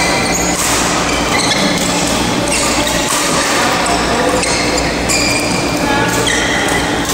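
Busy indoor badminton hall during play: many short, high squeaks of court shoes on the floor and sharp hits of shuttlecocks, over a steady background of voices and a low hum in a large reverberant hall.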